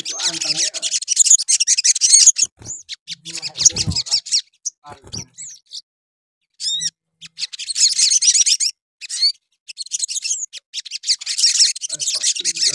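Male olive-backed sunbird singing in full song: rapid, high-pitched chattering phrases in repeated bursts, with a short pause near the middle broken by a few thin descending whistles.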